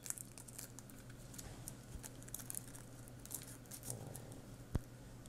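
Faint handling noise of a car-radio wiring harness: light rustling and small plastic ticks as the cables and a connector are turned in the hands, with one sharper click near the end.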